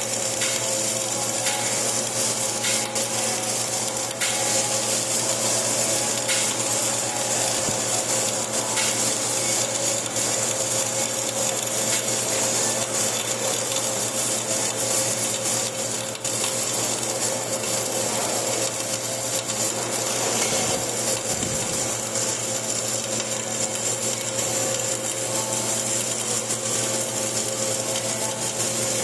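Flux-cored arc welding: the arc giving a steady, unbroken crackling sizzle with scattered small pops, over a steady low hum.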